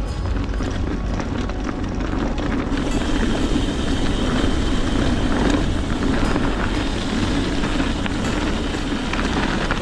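Steady rolling rumble and rattle of a mountain bike ridden over a snowy trail.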